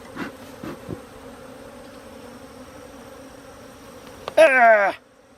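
Agitated honeybees buzzing steadily around a disturbed, knocked-over hive, stirred up enough to be stinging. Near the end, one short, loud exclamation with a falling pitch.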